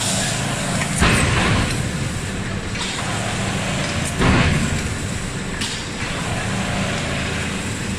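Industrial machinery of an automatic forging line running: a steady low mechanical hum under a noisy rush, with two louder rushing surges, one about a second in and one about four seconds in.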